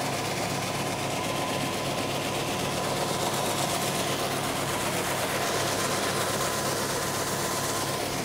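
Tractor engine running steadily, driving the hydraulic auger that pours granular fertilizer through the spout into the planter box.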